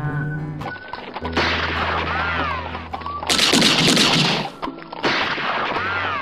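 Gunfire sound effects over music: three bursts of rapid shots, the middle one loudest, with a steady low bass underneath.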